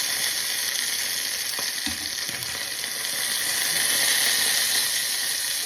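Chicken sizzling as it fries without oil in a hot skillet: a steady hiss that swells slightly midway, with a light knock about two seconds in.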